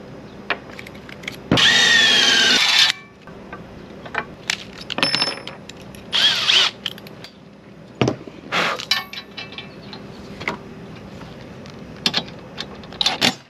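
Power drill boring a new bolt hole in the stand's bracket. One loud run of about a second, its whine bending in pitch as it loads, starts about one and a half seconds in. Shorter runs come near six and eight and a half seconds, with clicks and knocks of handled parts in between.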